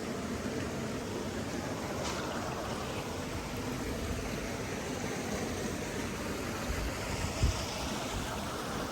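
Steady rushing of flowing water, as of a stream. A brief low thump about seven and a half seconds in.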